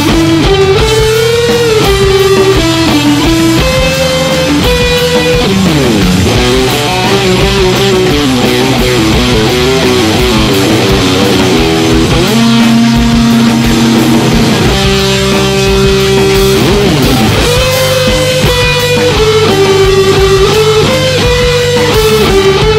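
Semi-hollow Telecaster Thinline-style electric guitar played along with a rock band recording: held, ringing notes over steady bass and drums, with a slide down in pitch about six seconds in and again near 17 s.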